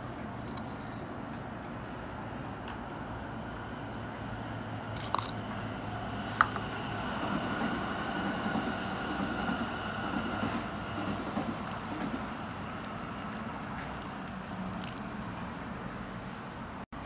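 Hot water poured from a kettle into a wooden soup bowl for about five seconds, starting about seven seconds in, over a steady hum of city traffic. Two sharp clicks come shortly before the pour.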